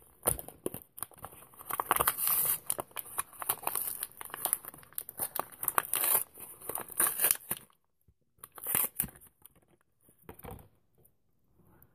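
Clear plastic lure packet crinkling and tearing as a swim jig is worked out of it: a dense crackle for about seven and a half seconds, then a couple of short rustles.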